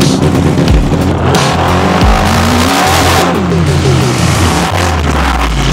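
The engine of a homemade turbocharged buggy is being driven hard, revving up and down so that its pitch climbs and falls in waves. A loud hiss comes in between about one and three seconds in, and the engine settles to a steadier, lower note near the end.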